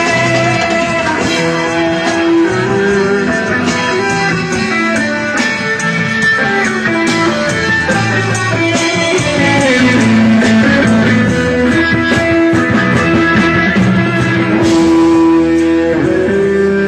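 Live band playing amplified music, with electric guitar to the fore over the rest of the band.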